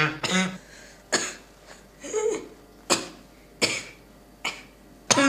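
A boy coughing in a fit, short harsh coughs about once a second, about six in all. He is a child patient in respiratory distress with suspected acute pneumonia.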